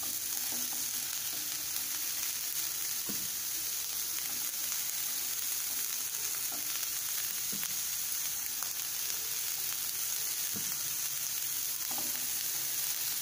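Chopped onion sizzling in oil on a hot iron dosa tawa as the pieces are sprinkled over it: a steady hiss with a few faint light ticks.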